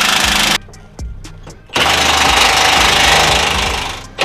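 Cordless Milwaukee impact wrench hammering as it tightens suspension bolts and jam nuts, in two bursts: a short one at the start, then a pause with a few clicks, then a longer run of about two seconds that dies away near the end.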